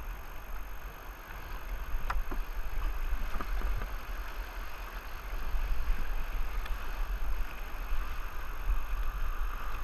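River rapid: fast white water rushing and churning around the kayaks, with a heavy low rumble on the microphone and a few light knocks.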